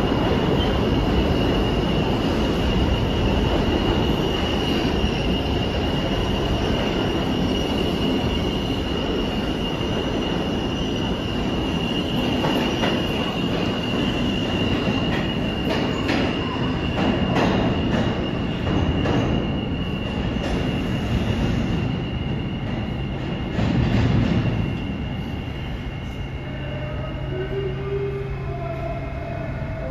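R160 subway train pulling out of the station into the tunnel: steel wheels rumbling on the rails with a steady high squeal over the top, dying away as the last car leaves.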